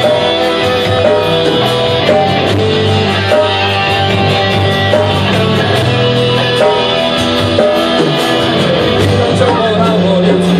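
Live rock band playing loud: electric guitars, bass and drums, with a singer.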